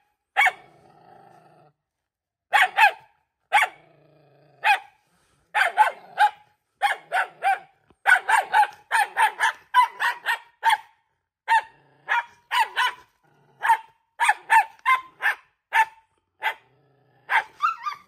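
A frightened black-and-tan dog barks over and over in quick runs of several sharp barks, with low growls in the short pauses. This is defensive, fear-driven barking from a wary dog that is all bluster.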